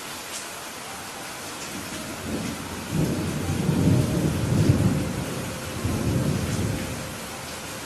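Steady rain falling, with a roll of thunder that builds about two seconds in, rumbles for several seconds and fades near the end.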